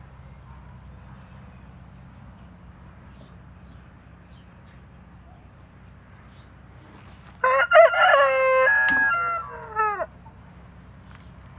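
Seven-month-old Plymouth Rock rooster crowing once, a loud call of about two and a half seconds starting some seven seconds in.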